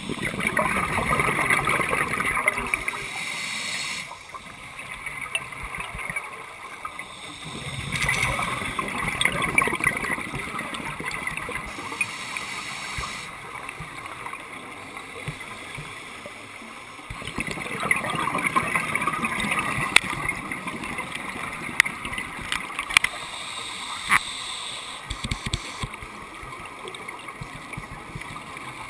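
Scuba regulator breathing heard underwater: bubbling exhaust bursts that swell and fade every several seconds, each lasting a few seconds, over a steady underwater rush.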